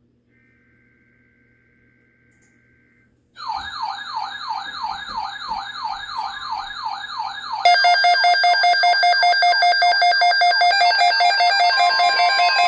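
Electronic emergency alert tones. First a faint two-tone data warble like an EAS header. Then a rapid siren yelp rising about three times a second, followed by a loud pulsing electronic alarm that a steady alert tone joins near the end.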